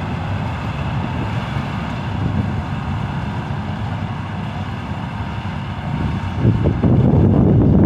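Combine harvester cutting wheat: a steady mechanical drone with a faint whine. From about six seconds in, wind buffets the microphone louder.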